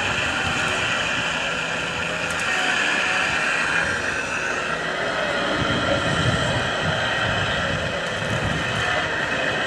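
Radio-controlled construction machinery running: a steady high-pitched whine of electric motors and gearing over a gritty rumble, which swells for a second or two past the middle.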